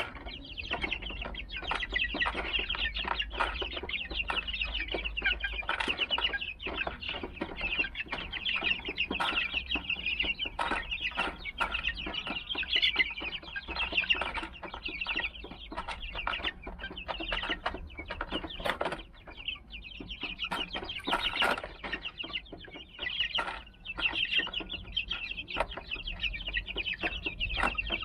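A flock of young Silver Laced Wyandotte chicks, about 38 days old, peeping continuously in many short, high, overlapping chirps. Scattered short clicks are heard among the peeps.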